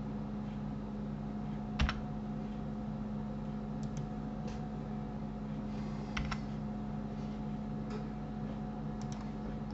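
A few scattered clicks of a computer keyboard and mouse, the loudest about two seconds in, over a steady low electrical hum.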